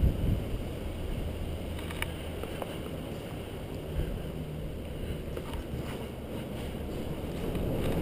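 Low rumbling wind noise buffeting the microphone, with a couple of faint clicks about two seconds in.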